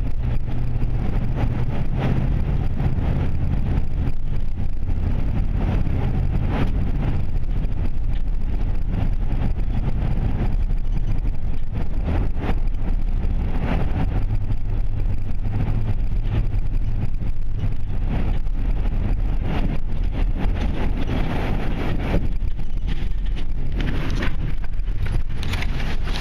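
Steady road and engine rumble of a moving car heard from inside the cabin while driving through a road tunnel, with a low hum under it.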